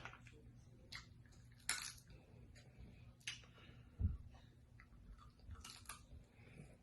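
A person chewing seafood, quietly, with a few sharp clicks and smacks scattered through and a soft low thump about four seconds in.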